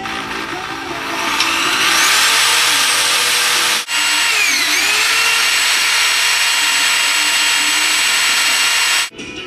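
Handheld electric drill running: its motor whine rises as it spins up, cuts out for a moment about four seconds in, then runs on with a brief dip in pitch before stopping near the end.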